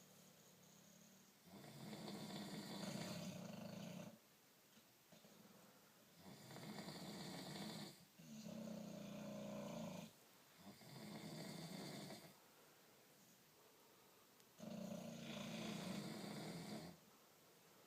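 Snoring: five drawn-out snores of about two seconds each, with quieter breaths in the gaps between them.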